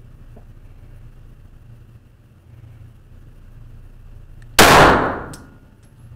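A single shot from a Smith & Wesson semi-automatic pistol, about four and a half seconds in, its report dying away over under a second in the indoor range; a faint click follows.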